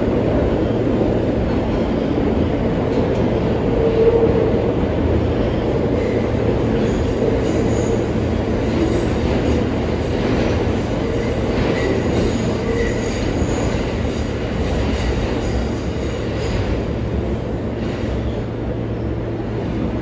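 R143 subway train running along the track, heard from inside the car: a steady rumble of wheels and motors over a low hum, with brief faint wheel squeals now and then.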